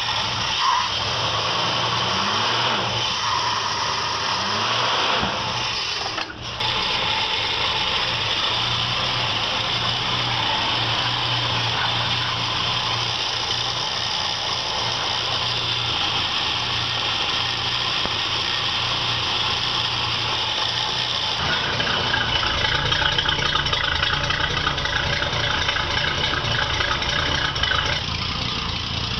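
1949 Studebaker pickup's flathead straight-six idling steadily through its newly fitted conventional exhaust pipes and muffler, run so the manifold flanges and muffler can be checked for leaks. It gets louder about two-thirds of the way through.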